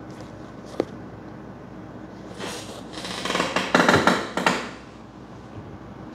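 Handling noise from shoes being picked up and turned over: a single click about a second in, then a few seconds of rustling and scraping, loudest just past the middle.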